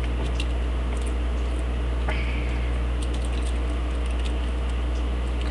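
Steady low electrical hum with faint, scattered small clicks and scratches, consistent with a thin metal wire being handled and bent with pliers.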